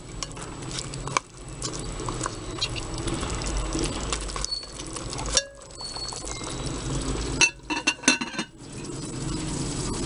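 Chicken pieces sizzling in a glass Visions pot while a spatula stirs them, with small scraping clicks throughout. A few sharp glass clinks come near the end.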